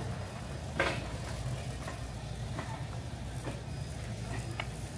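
Warehouse store background noise: a steady low rumble with one sharp clack about a second in.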